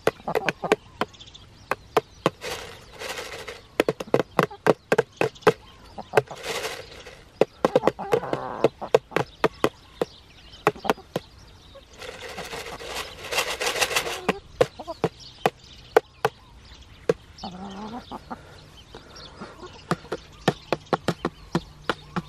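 Hens pecking at a hand-held plastic feed jar: rapid, irregular sharp taps of beaks on the plastic, with hens clucking over it in three longer stretches.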